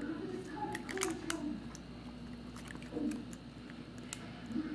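Small sharp clicks and taps of tools and parts during smartphone reassembly, scattered irregularly, several in quick succession about a second in and another near the end, over a low steady hum and a faint murmur of voice.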